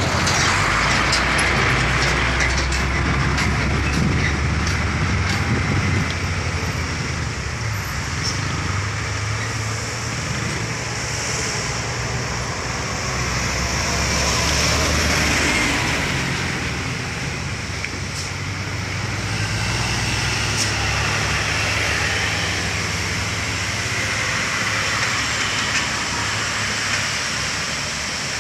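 Loaded cargo trucks' diesel engines and tyres passing one after another through a sharp bend. The loudest pass comes right at the start, with another swell about halfway through.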